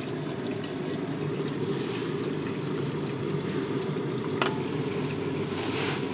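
Kitchen gas burner running with a steady low rumble under a pot of water being brought to the boil, with a couple of faint clicks.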